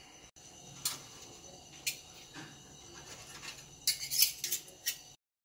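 Metal clinks from a cooking pot's lid and a spoon striking the pot as the layered biryani is uncovered and served: a few single clinks, then a quick run of louder ones near the end.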